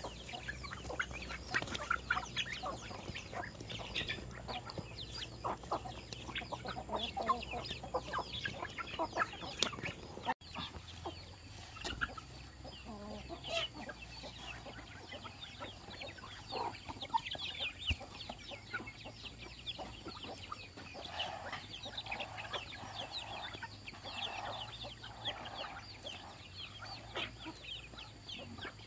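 Chickens calling: a steady stream of short, high, falling cheeps, with some lower clucks about three-quarters of the way through. The sound drops out briefly about ten seconds in.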